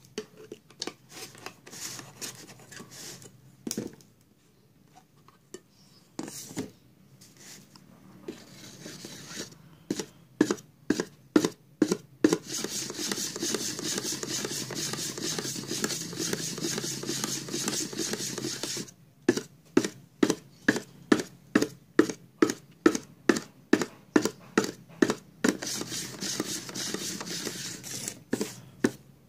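A flat stick stirring thick black nitrocellulose car paint in a metal paint tin, scraping against the inside of the can in rhythmic strokes of about two a second, with a stretch of continuous scraping in the middle. At the start come scattered clicks and knocks as the tin's lid is worked open.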